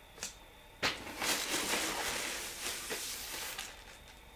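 A sharp tap about a second in, then tissue paper rustling and crinkling for about three seconds as a tissue-wrapped package is lifted out of a cardboard box.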